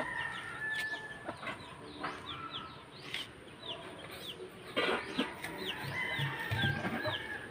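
Free-ranging chickens clucking, with many short high chirps repeating throughout.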